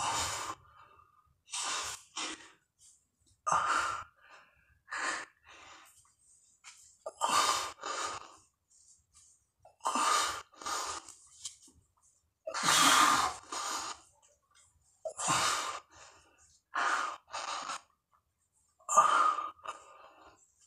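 A man breathing hard through his mouth while doing push-ups, short forceful breaths and gasps every second or so, some in quick pairs, with brief quiet gaps between. It is the heavy breathing of exertion late in a 200-push-up set.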